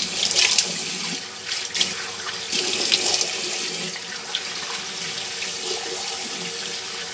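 Water running from a tap into a bathroom sink, with splashes as a face is rinsed by hand; the splashing thins out after about three seconds while the tap keeps running.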